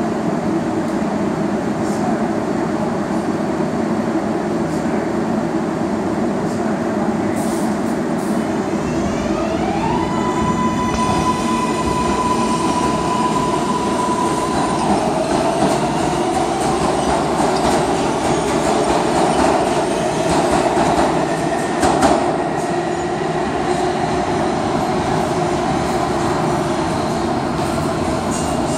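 R142A subway train pulling away on the express track: its electric traction motors give a whine that climbs and then holds one steady pitch for about five seconds before falling away, over the rumble of wheels on rail. A single sharp knock sounds about two-thirds of the way through.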